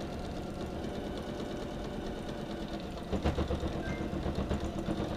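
Janome electric sewing machine running steadily, stitching a zipper onto a down-filled coat, getting louder about three seconds in.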